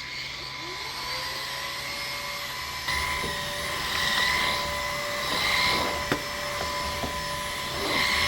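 LG CordZero A9 Air cordless stick vacuum running: its motor winds up with a rising whine in the first second, then runs with a steady high whine that swells three times.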